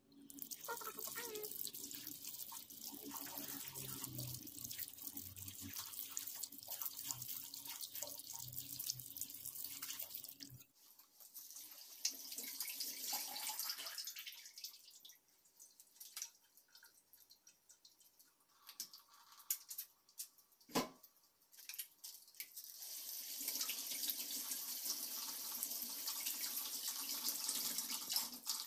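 Water running from a tap into a sink during handwashing. It drops away partway through, leaving a quiet stretch with a few clicks and one sharp knock, then runs strongly again near the end.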